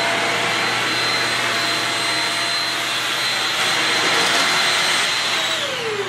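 Shark Rocket UV450 upright vacuum running steadily on its lowest setting, with a high whine over the rush of air. Near the end it is switched off and the motor winds down, the whine falling in pitch.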